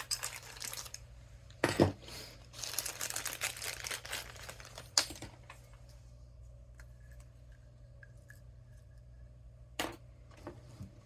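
Hands rummaging through crinkly craft materials while searching for a dropped needle: bursts of rustling and crinkling with a few sharp knocks, growing quieter after about five seconds.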